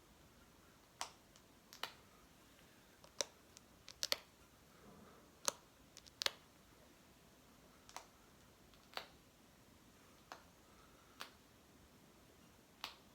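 A small object being flicked close by: about fifteen short, sharp clicks spaced irregularly, one at a time.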